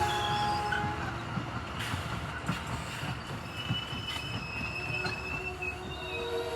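A train rolling past, its wheels squealing on the rails: several thin, high squealing tones that shift and come and go over a low rumble.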